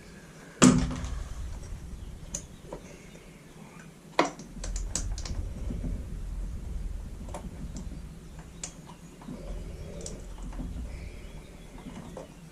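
Scattered small clicks and taps of plastic and metal parts being handled while a leaf blower's pull-cord recoil starter is put back together, with a sharp knock about half a second in and another about four seconds in.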